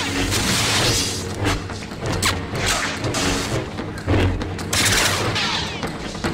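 Film-soundtrack lightsaber effects: a steady low hum with repeated swooshing swings and many sharp clashes, over background music.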